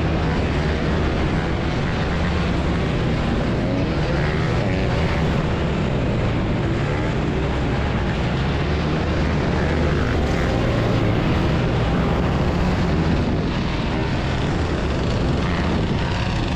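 Motorcycle engines running steadily, with some rises and falls in pitch from revving.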